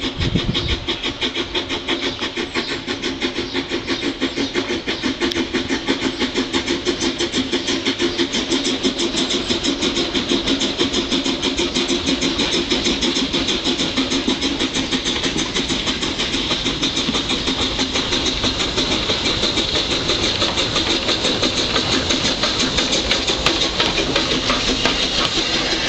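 Double Fairlie narrow-gauge steam locomotive working up a gradient, its exhaust chuffing in fast, even beats that grow louder as it draws near and passes.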